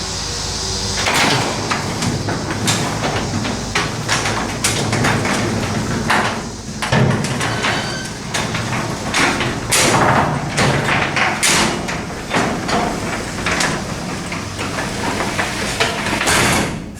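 Sectional garage door closing, its rollers and panels rattling and clanking along the tracks in a long run of knocks that stops abruptly near the end.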